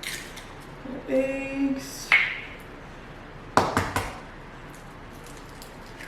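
Clinks and knocks of a mixing bowl and utensils as ingredients go in: a sharp click about two seconds in and a quick cluster of knocks about three and a half seconds in, with a short pitched sound lasting under a second about a second in.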